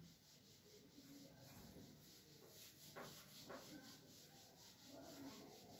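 Whiteboard eraser rubbing across a whiteboard: faint, repeated wiping strokes, with two light knocks about halfway through.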